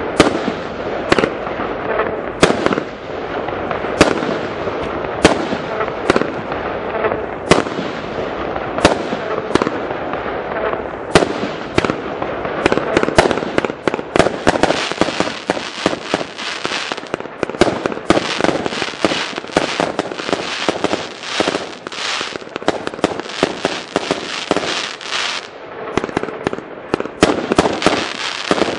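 Fireworks display: aerial shells launching and bursting with sharp bangs about once a second, turning about halfway through into a dense, rapid volley of bangs.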